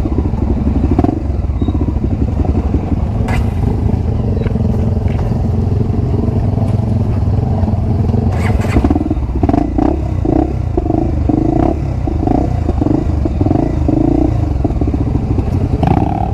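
Honda XR250 Tornado's single-cylinder four-stroke engine running under way on a dirt trail, breathing through a new aftermarket Power Core 2 exhaust. Occasional knocks and clatter come through, the loudest around 3 seconds and 9 seconds in.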